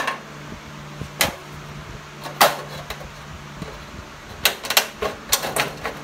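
Tin snips cutting through thin aluminium sheet of a periscope dryer vent: sharp metallic snips with the sheet crinkling, a few spaced out at first, then four or five in quick succession near the end. A steady low hum runs underneath.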